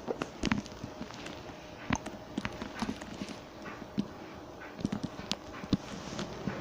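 Scattered light knocks and clicks at an uneven pace, the sound of footsteps and of objects being handled and moved.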